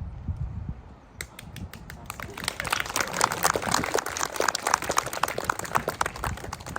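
Audience clapping, starting about a second in, filling out into dense applause and thinning near the end.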